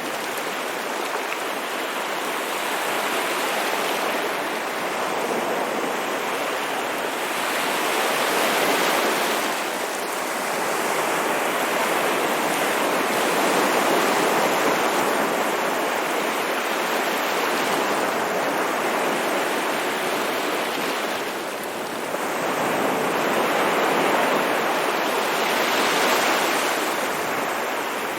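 Ocean waves washing onto a shore, a continuous rush of surf that swells and eases every few seconds.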